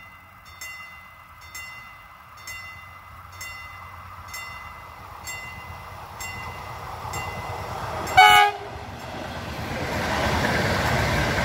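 A passenger electric multiple unit approaches and sounds one short horn blast about 8 seconds in, then passes close by with a rising rumble and wheel hiss. A regular ringing ding about once a second is heard before the horn.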